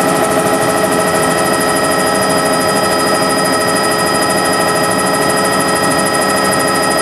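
Helicopter in flight heard from inside the cabin: a loud, steady engine and rotor drone with several steady whining tones over it.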